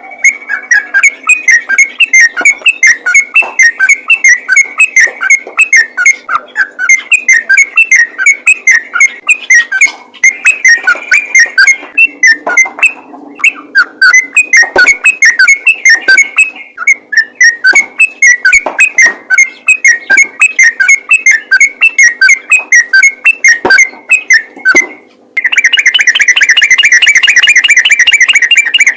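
Yellow-vented bulbul (trucukan) singing loudly in the rapid-fire 'ropel' style: a fast, unbroken run of short whistled chirps, several a second, with a brief break a little before the middle. It ends in a dense continuous trill for the last few seconds.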